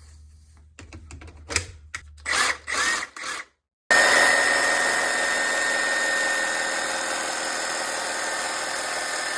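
A few clicks and knocks of handling, then about four seconds in a Milwaukee M18 Super Sawzall cordless reciprocating saw starts abruptly and runs at a steady speed with a constant whine, stopping near the end.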